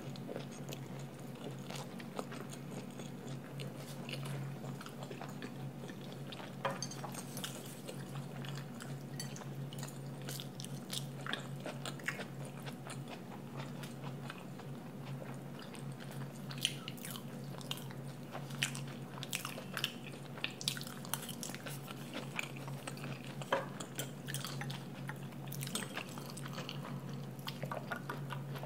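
Close-miked chewing and small wet mouth clicks of someone eating stir-fried minced pork and mashed potatoes, the clicks coming more often in the second half, over a steady low hum.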